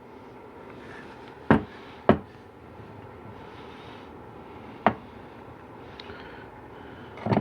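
Four sharp knocks and clicks spread a few seconds apart over faint steady room noise: transmission pump parts and tools being handled and set down on a workbench.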